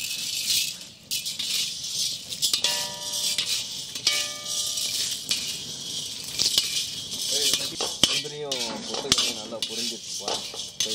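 Dry roasted gram and cashews rattling and scraping against an iron kadai as a perforated ladle stirs and tosses them, a steady dry hiss with scattered clicks. Voices in the background about two-thirds through.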